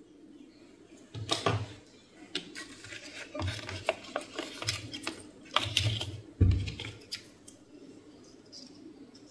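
Workbench handling sounds: scattered clicks, scrapes and rubbing of hard parts and tools being handled, with several dull knocks, the loudest about six and a half seconds in, over a faint steady hum.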